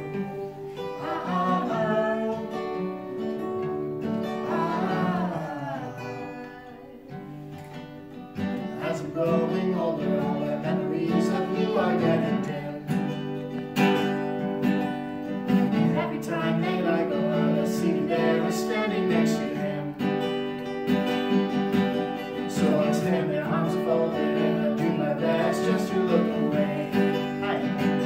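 Acoustic guitar strumming a song, with singing over it at times. It drops softer for a couple of seconds partway through, then picks up fuller and busier.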